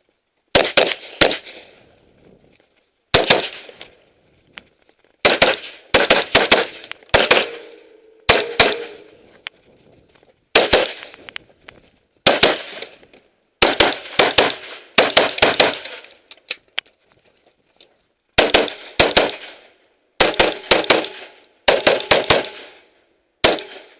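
Semi-automatic rifle firing quick strings of two to four shots with short pauses between, a dozen or so strings in all. A ringing note hangs on after many of the strings.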